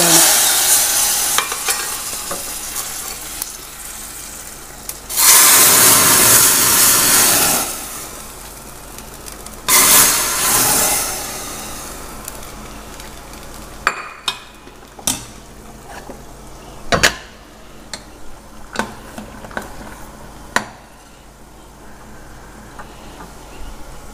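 Hot oil tempering with mustard seeds, asafoetida, chilli and curry leaves sizzling as it goes into the sambar, swelling loudly twice in the first half. Then a spoon stirring the pot, with several sharp clinks against it.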